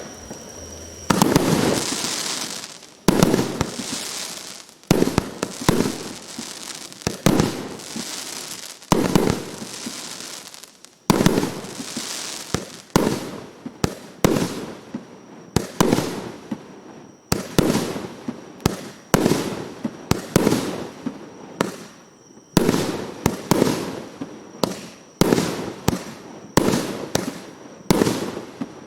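A 300-shot, 1.2-inch firework cake firing its shots in steady succession: a sharp bang roughly every second or two, each followed by a fading crackle.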